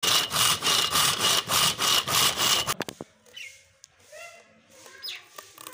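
Saw cutting through a dry firewood log in fast back-and-forth strokes, about four or five a second, with a high ringing tone through the rasping. The sawing stops suddenly about two and a half seconds in, followed by a couple of light clicks.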